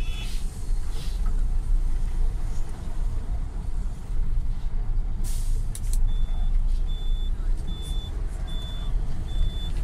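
Steady low engine and tyre rumble from inside a moving tour bus on a cobblestone street. A short hiss comes about five seconds in, and about six seconds in a high electronic beep starts repeating, roughly one and a half times a second.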